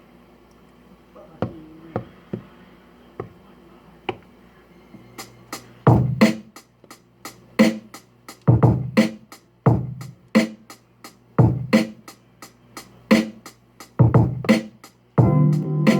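Drum machine beat from a Maschine Mikro: a few separate pad hits at first, then from about five seconds in a looping pattern of kick, snare and hi-hat. Near the end a sustained synth chord layer joins the drums.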